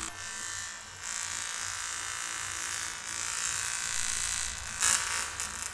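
Argon (TIG) welding arc buzzing steadily while an aluminium air-conditioning condenser tube is welded, flaring louder briefly near the end.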